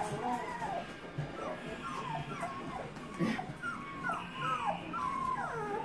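Two-week-old white German Shepherd puppies whimpering and squeaking: a string of short, falling, high calls that come thicker and faster from about two seconds in.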